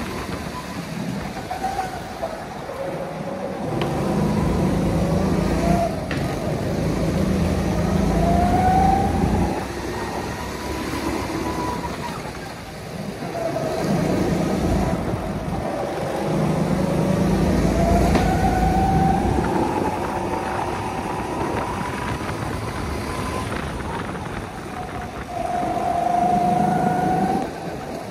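Go-kart engine running hard round a track, its pitch rising each time it accelerates along a straight and falling off into the corners, again and again.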